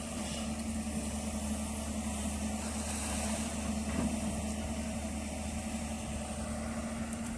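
Hyundai long-reach excavator's diesel engine running steadily with an even drone, and a brief knock about four seconds in.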